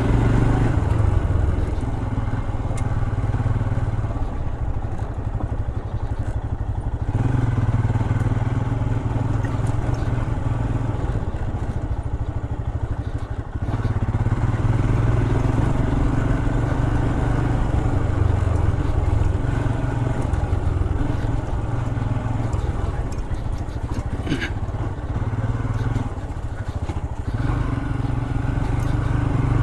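Royal Enfield Himalayan's 411 cc single-cylinder engine running while the bike is ridden along, the engine note easing off and picking up again a few times. A single sharp knock about three-quarters of the way through.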